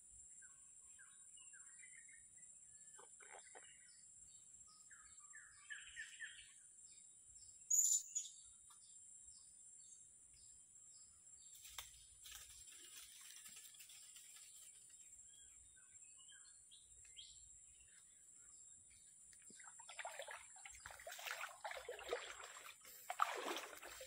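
Long-tailed parakeets (betet) calling in short runs of chirps during the first seven seconds, over a steady high-pitched drone. There is one sharp click about eight seconds in. Louder rustling and splashing builds over the last few seconds.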